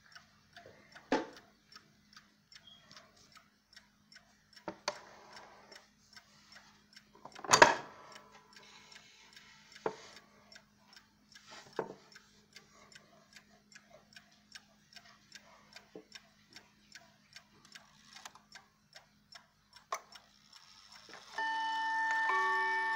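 The Howard Miller Thomas Tompion mantel clock's floating-balance movement ticking steadily, several ticks a second, with a few louder knocks, the loudest about seven and a half seconds in. Near the end the clock begins to chime, its hammers striking the chime rods in a run of ringing notes.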